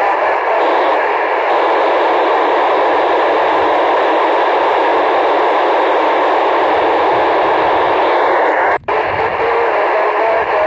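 FM radio receiver tuned to the PO-101 satellite downlink giving a steady white-noise static hiss, with no voice on the channel. The hiss cuts out for an instant about nine seconds in.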